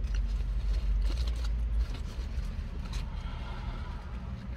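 Low rumble of a motor vehicle, heaviest for the first two seconds and then easing, with a few faint clicks.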